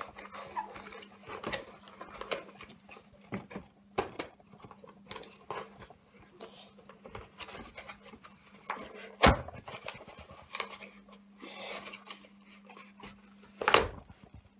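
A cardboard play dough box being handled and pulled open: irregular rustling, scraping and clicking of cardboard, with sharp knocks, the loudest about nine seconds in and again near the end. A low steady hum runs underneath.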